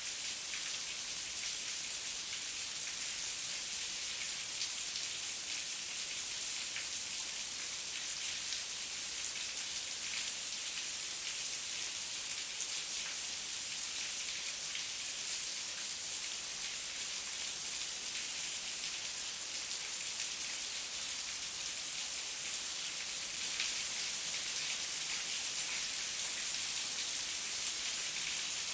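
Heavy rain falling steadily, a constant hiss dense with fine drop patter.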